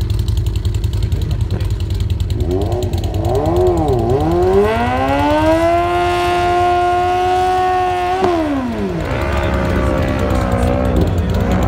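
Sportbike engines at a drag strip start line: a few quick revs, then held at high revs for about three seconds during a burnout, with a sharp drop just after eight seconds and a fresh climb in revs near the end, over a steady low rumble.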